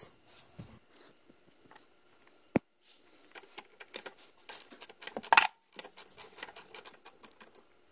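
Ratcheting box-end wrench clicking in quick runs and steel tools clinking on the throttle linkage as its bolt is loosened, with one sharp click about two and a half seconds in.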